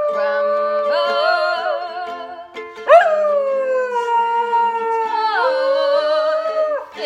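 A dog howling along to slow backing music. Long wavering howls slide gradually down in pitch. The loudest howl rises sharply about three seconds in and then falls away slowly, and another starts just before the end.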